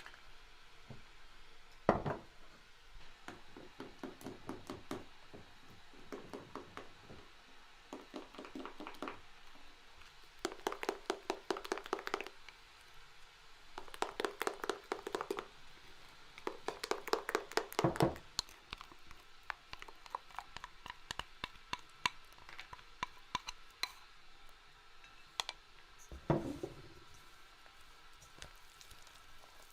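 A knife chopping rapidly on a wooden cutting board, in several quick runs of about eight strokes a second, with a heavier single knock near the start and another near the end.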